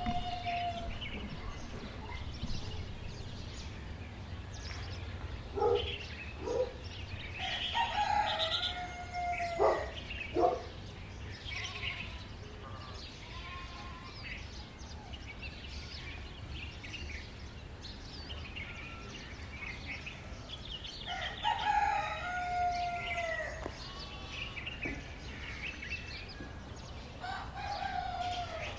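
A rooster crowing three times, long calls that fall in pitch at the end, with smaller bird chirps between. A few sharp knocks come about six and ten seconds in.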